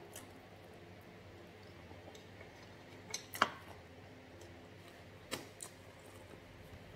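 A few sharp clicks and taps of a metal fork against a plate of rice while eating, the loudest about three and a half seconds in.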